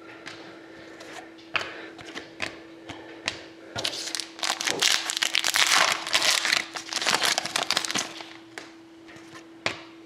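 Trading-card pack wrappers crinkling and tearing open while cards are handled: scattered crackles and rustles, densest and loudest in the middle. A steady hum runs underneath.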